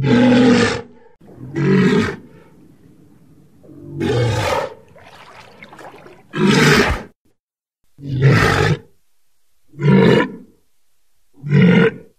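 A walrus giving a series of short, loud, throaty calls, about seven in all, each under a second long and spaced a second or two apart.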